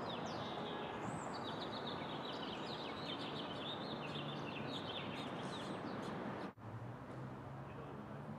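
Faint outdoor background noise with many small birds chirping. About six and a half seconds in it cuts to a quieter background with a low steady hum.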